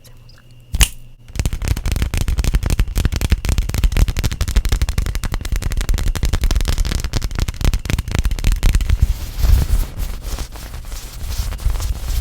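A single sharp click, then about a second in a rapid, dense run of tapping and crackling on an object close to the microphone.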